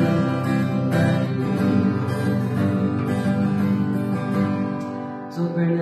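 Acoustic guitar strumming chords with no singing, the strumming growing quieter near the end.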